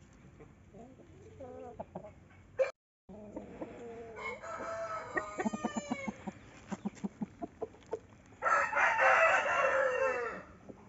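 Roosters crowing and clucking: a crow about four seconds in, then a run of short clucks, then a louder crow of about two seconds starting around eight and a half seconds in, its pitch falling at the end.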